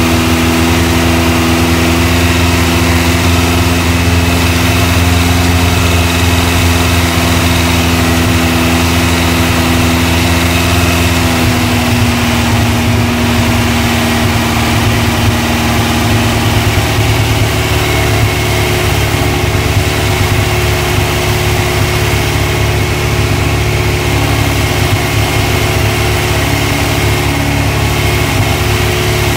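Air-cooled VW Type 1 2054cc stroker engine running steadily on an engine stand through its exhaust and muffler, during the first run for cam break-in. Its note steps down a little twice, about twelve and seventeen seconds in.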